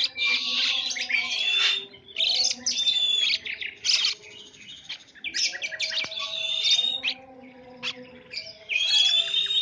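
Songbird chirping and warbling in short bursts of rapid chirps and whistled notes, with brief pauses between phrases, over a faint steady low hum.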